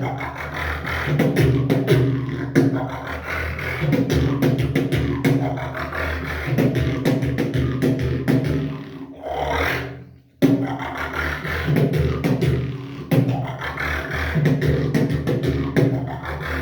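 Solo vocal beatboxing: rapid mouth-made clicks and snare-like hits over a hummed bass line, echoing with bathroom reverb. About nine seconds in a rising vocal sweep leads into a brief break, then the beat resumes.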